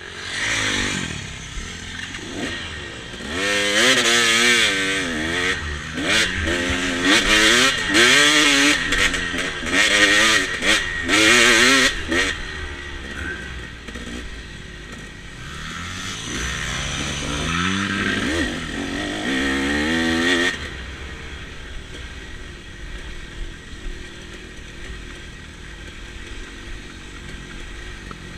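Dirt bike engine revving under way, its pitch climbing and dropping back again and again as the rider accelerates and shifts. About twenty seconds in it settles to a quieter, steadier run.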